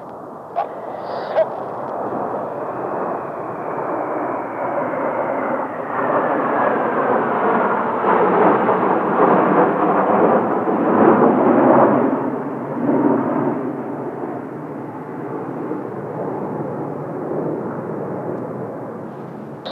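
A formation of Kawasaki T-4 jet trainers making a low pass: the jet noise builds, is loudest about 8 to 12 seconds in, then fades, with a faint falling engine whine as the jets go by.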